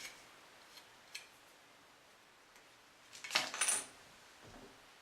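Light clatter of small hard objects being handled: a faint click about a second in, then a short rattling clink about three seconds in.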